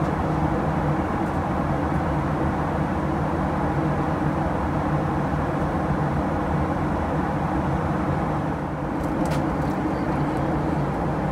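Steady drone of engine and airflow noise inside the cabin of a Boeing 737-900, even and unchanging, with a few faint clicks about nine seconds in.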